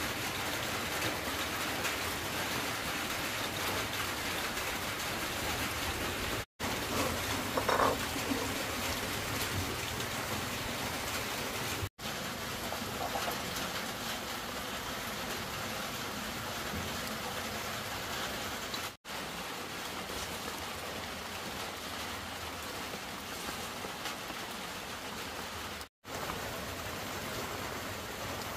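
A steady, even hiss broken four times by a split-second drop to silence where the footage cuts.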